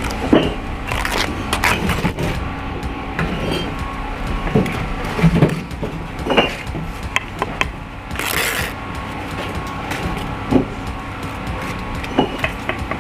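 Bricklaying work: trowel and bricks knocking, tapping and scraping at irregular intervals, with a short hissing scrape about eight seconds in. A steady hum from running machinery sits underneath.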